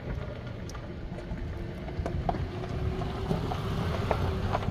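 1986 Subaru Brat's flat-four engine running at a steady idle, with small clicks of wire and tape being handled close by.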